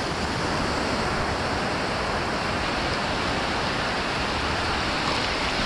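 Ocean surf washing onto a sandy beach: a steady, even rush of breaking waves and foam, with no single wave standing out.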